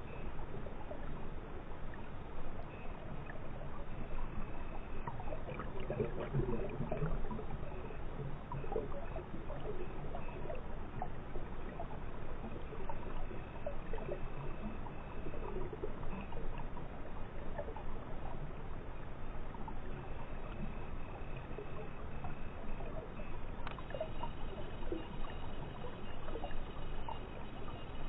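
Stream water bubbling and gurgling, recorded underwater and muffled, with many small pops and ticks.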